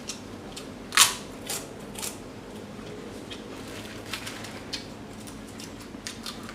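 Close-up mouth sounds of chewing fried shrimp: scattered sharp crunches and wet clicks, the loudest about a second in.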